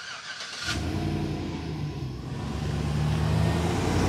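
Chevrolet Silverado pickup's engine running as the truck drives toward the camera, growing steadily louder as it nears.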